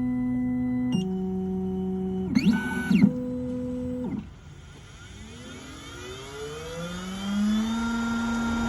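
Triton Plus key-cutting machine running, its motors whining at steady pitches that step up and down, with a few brief sweeping bursts. About four seconds in it drops quieter, then a whine climbs steadily in pitch as a motor speeds up.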